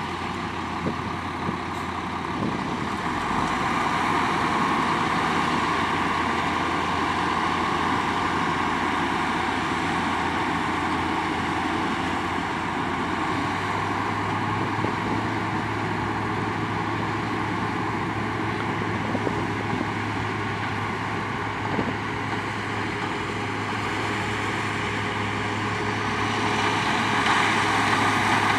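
A sugarcane harvester and a cane truck run side by side as the harvester cuts and loads cane. Their diesel engines and the harvester's machinery make a steady din that grows louder near the end as the harvester draws close.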